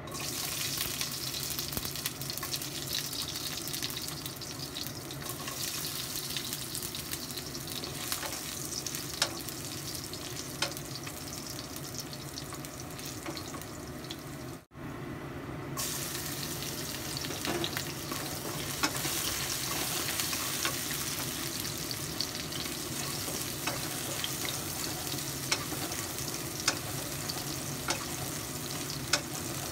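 Garlic sizzling in hot oil in a wok, a steady frying hiss with now and then a click of the wooden spatula against the pan. About halfway there is a brief break, after which the sizzle is brighter, with minced garlic frying alongside the whole cloves.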